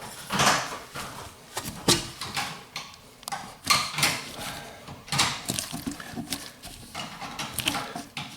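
Irregular clinks, knocks and scrapes of garbage disposal mounting hardware being handled and fitted at the sink drain.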